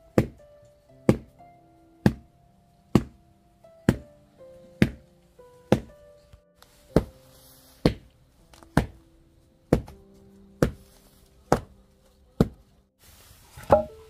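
Background music: a sharp percussive beat about once a second under a slow melody of held notes.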